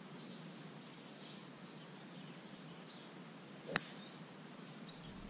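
A golf driver striking a ball off the tee: one sharp, ringing crack about three-quarters of the way in, by far the loudest sound. Faint bird chirps can be heard in the background.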